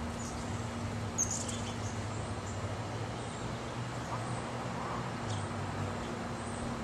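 Steady low drone of an airplane passing overhead, with a few short, high bird chirps; the clearest comes about a second in.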